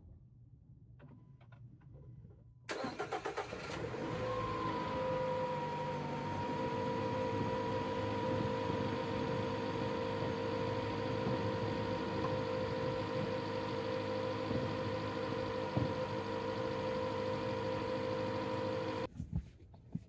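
A Jeep Renegade's engine is started: a brief crank about three seconds in, then it catches and settles into a steady idle with a light whine. The sound stops abruptly near the end.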